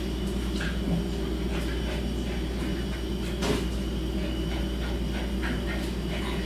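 A steady low hum with scattered faint clicks and one sharper knock about halfway through.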